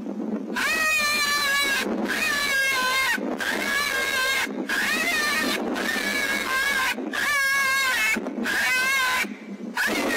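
Predator call sounding a string of high-pitched, wavering animal distress cries, each about a second long with short breaks between. It starts about half a second in.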